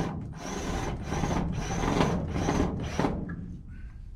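Cordless screw gun driving a screw into a wooden ceiling in short repeated bursts, about six, stopping about three seconds in.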